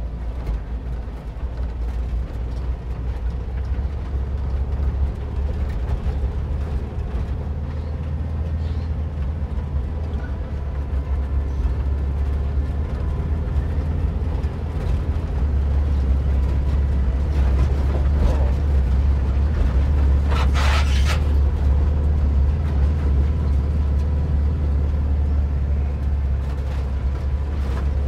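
A 1958 VW bus's air-cooled flat-four engine running steadily as the bus climbs a rutted dirt trail, a low rumble that grows louder about halfway through. A brief harsh noise breaks in about twenty seconds in.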